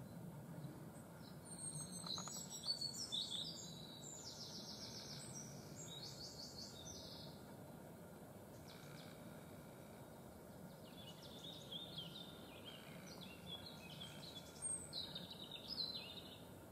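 A small songbird singing in two bouts of quick, high notes and trills, each lasting several seconds with a pause between, over a faint steady background hum.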